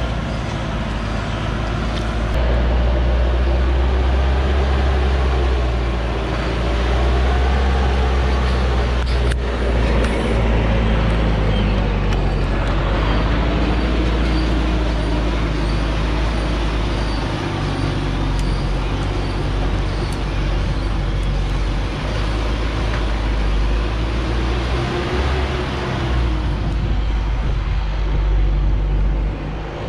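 A diesel cargo truck's engine running hard as the truck climbs a steep dirt slope under a full load of acacia logs, passing close by.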